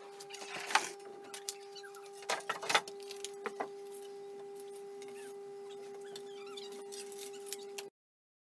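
Wooden boards being handled on a workbench: scattered knocks and clatter, loudest about a second in and around three seconds in, over a steady hum. The sound cuts off suddenly near the end.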